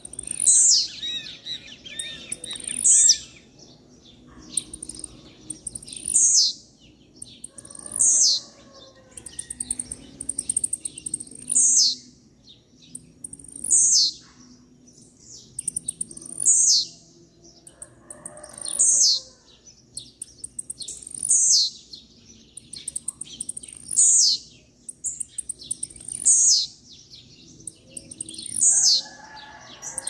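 Male blue-black grassquit (tiziu) singing its short, high, downward-sliding song over and over, one phrase every two to three seconds.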